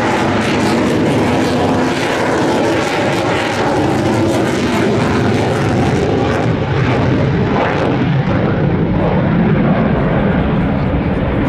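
Boeing F/A-18F Super Hornet's twin General Electric F414 afterburning turbofans, a loud, steady jet noise during a flying display. The higher hiss fades after about six seconds, leaving the lower part of the noise.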